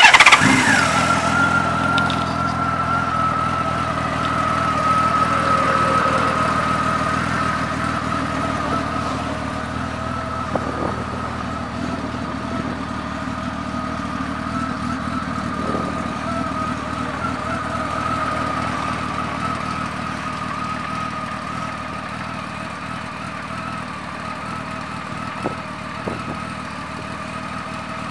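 Honda Valkyrie's 1520 cc flat-six engine starting up, then settling into a steady idle.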